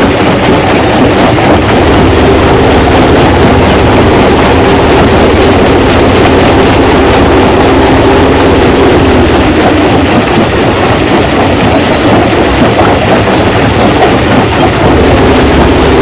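Stone crushing machine running, a loud, steady, dense mechanical noise over a steady low hum.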